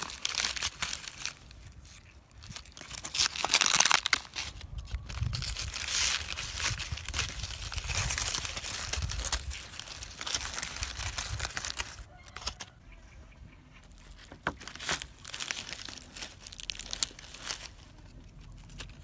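Charred, dry banana-leaf wrapping of a grilled parcel being torn open and unfolded by hand, crackling and rustling. The crackling is dense for most of the first twelve seconds, then softer with a few short bursts.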